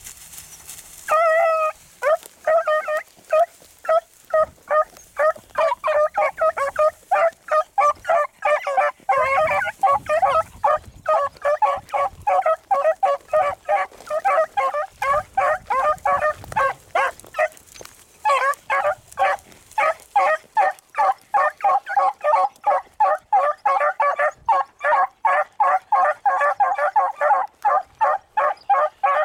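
Beagles giving tongue on a rabbit's scent trail: one longer bay about a second in, then a rapid, overlapping run of short chop barks, several a second, that breaks off briefly past the middle and picks up again.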